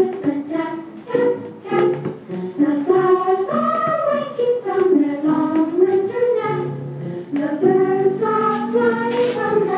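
Children's song with sung vocals playing from a vinyl record on a 1970s Zenith console stereo turntable, heard through the console's speakers.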